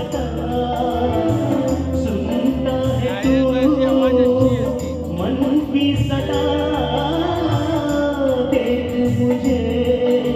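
Male singer singing live into an amplified microphone, an ornamented melodic line over a live band of keyboard and guitars with a steady low beat.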